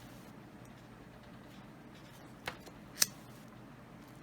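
A lighter clicked twice, about half a second apart, over a faint room hiss, as it is flicked on and off to heat a heat-shrink sleeve a little at a time.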